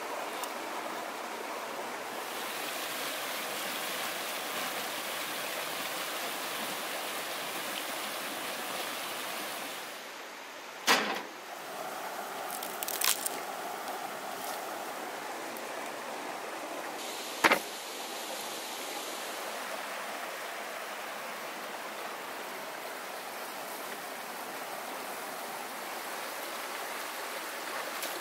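Steady rushing of a river's flowing water. Three sharp knocks stand out in the middle, the first the loudest.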